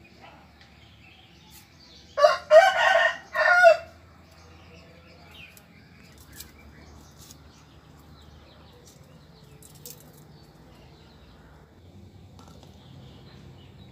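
A rooster crowing once, about two seconds in: one loud call of about a second and a half in a few linked segments. Faint small clicks sound on and off around it.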